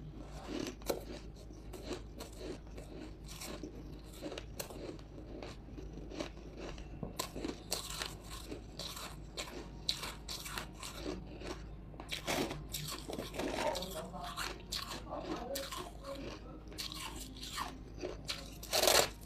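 Close-up crunching and chewing of hard buckwheat ice chunks, ice frozen with buckwheat tea, as they are crushed between the teeth: a continuous run of sharp crunches. A loud bite into a fresh chunk comes just before the end.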